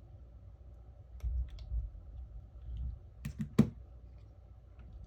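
Small, sharp clicks and taps of phone parts being handled and fitted by hand, the loudest a snap about three and a half seconds in, over a low steady hum.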